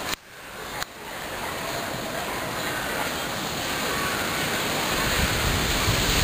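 Steady rushing noise of wind on the microphone, with a brief drop in level at the start that ends in a click under a second in, and a low rumble building toward the end.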